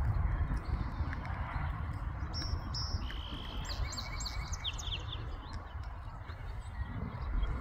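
Small songbird chirping a short phrase of high clear notes and quick downward chirps a couple of seconds in, over a steady low rumbling noise on the microphone.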